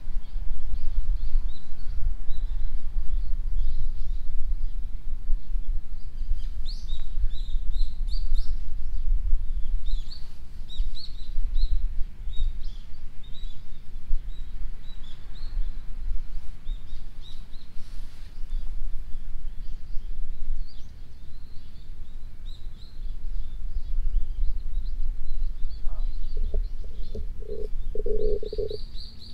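Small birds chirping in many short, high calls, busiest from about six seconds in, over a steady low rumble.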